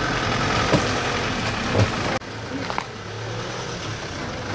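Outdoor street background noise: a steady hiss with a couple of light knocks. About two seconds in it drops abruptly to a quieter, steady low hum.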